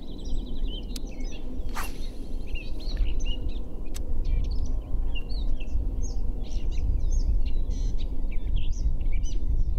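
Songbirds chirping and trilling from the lakeside trees over a steady, uneven low rumble. A single sharp click comes about two seconds in.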